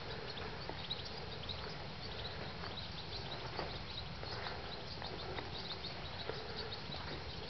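Outdoor ambience on a camcorder microphone: a steady low rumble with many short, scattered high-pitched sounds and light ticks over it.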